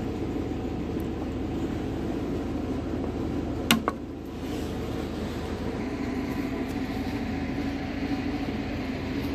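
Diagonal cutters snipping a plastic tab off a lawnmower engine spacer: one sharp snip a little under four seconds in, with a smaller click just after. A steady low mechanical hum runs underneath.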